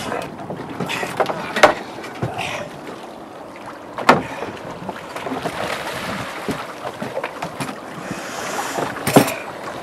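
Wind on the microphone and water noise around a small open boat at sea. Three sharp knocks stand out, the first about a second and a half in, one about four seconds in and the last near the end.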